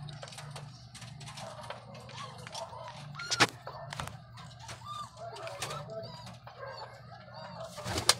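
Pigeons in a loft making many short squeaky calls, over a steady low hum. Two sharp knocks stand out, one about three and a half seconds in and one near the end.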